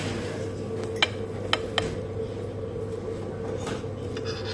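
Metal fork clinking against an aluminium foil tray while scooping baked pasta: three sharp clicks between about one and two seconds in, and a fainter one near the end, over a steady low hum.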